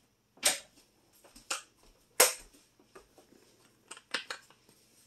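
Five or six sharp, irregular clicks and knocks, the loudest about half a second and two seconds in.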